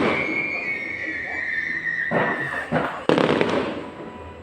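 Fireworks going off: a long whistle that falls slowly in pitch over the first two and a half seconds, with sharp bangs about two seconds in and again just after three seconds.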